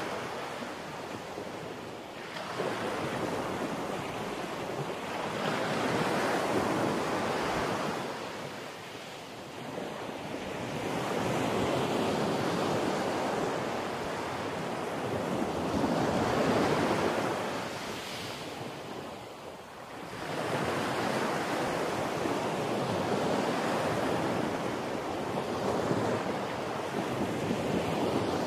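Rough storm surf breaking and washing ashore in cyclone winds, with strong wind buffeting the microphone. The roar swells and eases every few seconds as waves break and gusts come and go.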